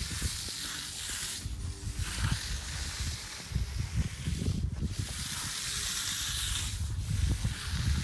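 Stick trowel blade sliding over wet concrete, a steady hissing scrape that breaks off briefly three times, over an uneven low rumble.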